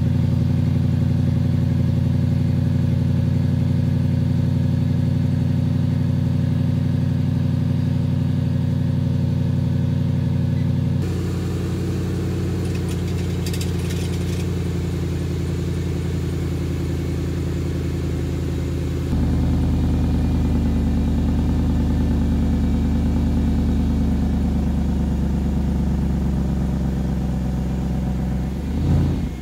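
The 4.2-litre supercharged V8 of a 2008 Range Rover Sport Supercharged idling steadily through its stock exhaust, heard from behind the car and then close at the tailpipe, so the tone shifts twice. A short rev lifts the pitch right at the end.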